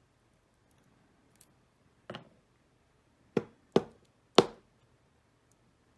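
Small metal lock parts and tools knocking down on a bench mat: a faint tick, then four short sharp knocks over about two and a half seconds, the last one loudest.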